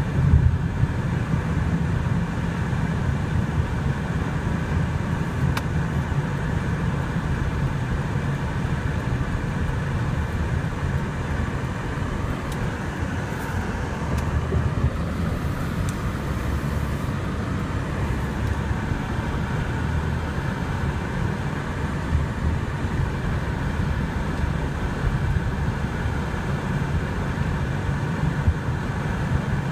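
Steady low rumble of a car's tyres and engine heard from inside the cabin while driving on a snow-covered road.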